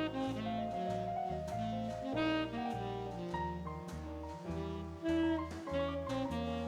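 Background jazz music: a saxophone melody over a stepping bass line and piano, with light percussion ticking along.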